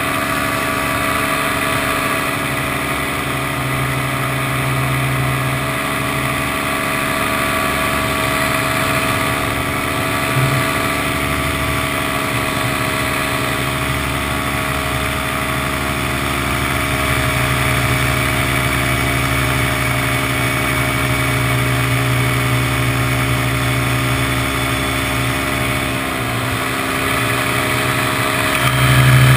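Paramotor's two-stroke engine and propeller running steadily at cruise throttle in flight, heard close up from the pilot's harness.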